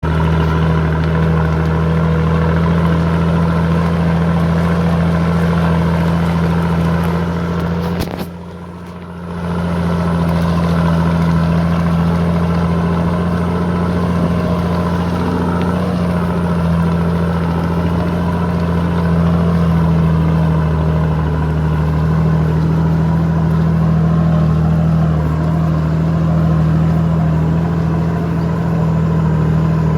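Nissan Patrol Y61's 2.8-litre six-cylinder turbo diesel running at a steady speed through a straight-through stainless steel exhaust, its note unchanging. The sound drops briefly about eight seconds in, then returns.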